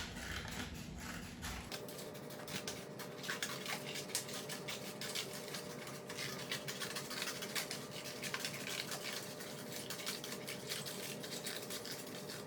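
Scissors cutting through a paper plate: a run of quick, irregular snips and crinkles over a faint steady hum.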